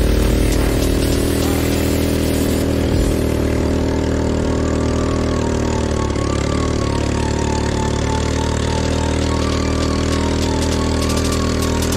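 An ATV engine idling steadily, holding an even pitch.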